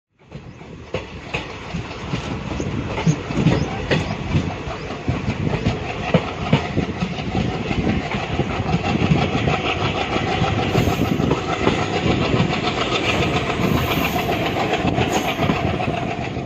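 Train running along the track, its wheels clattering over rail joints in a dense, uneven clickety-clack.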